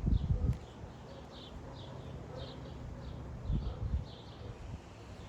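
A bird chirping over and over, short high chirps about twice a second, with low thumps at the start and again about three and a half seconds in.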